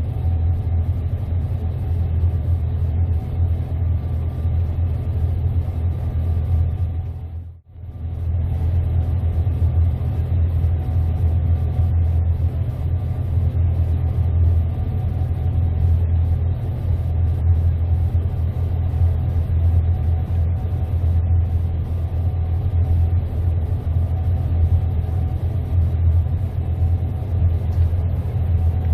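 Gleaner S98 combine running steadily while harvesting wheat: a continuous low rumble with faint steady machine tones above it. It breaks off for a moment about eight seconds in, then carries on unchanged.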